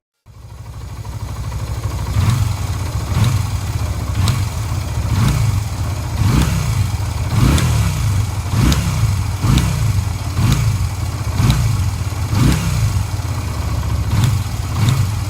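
Yamaha Virago 250's air-cooled V-twin engine running, its revs rising and falling in regular blips about once a second.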